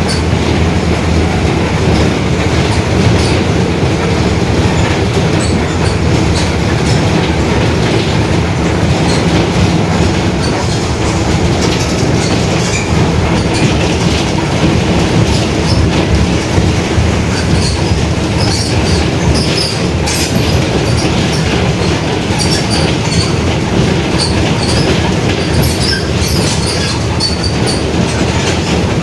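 Mercedes-Benz OF-1721 BlueTec 5 city bus under way: steady drone of its diesel engine and drivetrain, with the differential growling. Light clicking and rattling from the body runs over it, more of it in the second half.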